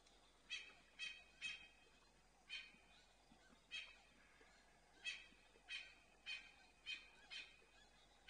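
Lioness lapping water from a shallow puddle: a series of about a dozen short, wet laps, irregularly spaced at roughly one to two a second.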